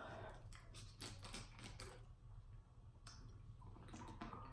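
Faint clicks and plastic crackles of a plastic water bottle being handled and its cap twisted open, in quick clusters, thickest in the first two seconds and again near the end.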